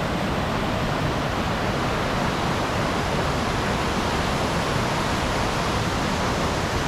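Steady rush of water pouring over a waterfall.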